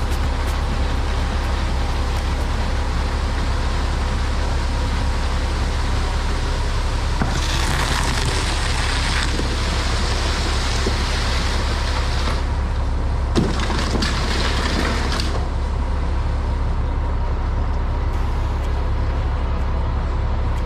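Concrete mixer truck's diesel engine running steadily. Near the middle, a louder hiss comes and goes in three stretches of a few seconds each, with one sharp tick.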